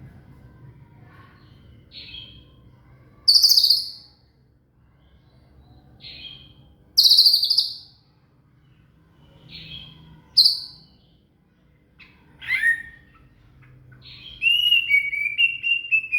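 White-rumped shama (murai batu) singing: loud, short whistled phrases with pauses between them, some sliding down in pitch, ending in a longer warbling trill.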